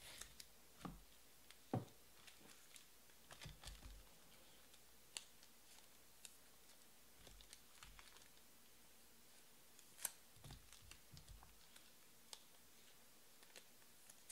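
Faint, scattered light clicks and taps of small handling, with two sharper taps about two seconds in and about ten seconds in, and a few soft low knocks around four seconds in.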